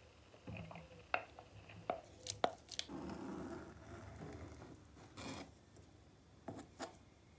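A kitchen knife tapping and clicking against a metal baking pan as it works the pastry rim of a savoury tart. There are several sharp taps in the first three seconds, a short scrape about five seconds in, and two more taps near the end.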